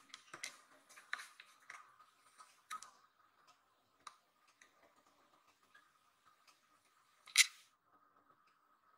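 Scattered faint clicks and ticks, with one short, sharper click-scrape about seven seconds in, over a faint steady high hum. No meows.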